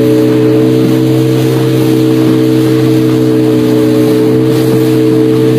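Outboard motor of a small boat running steadily at cruising speed, a constant engine drone with a rushing noise over it.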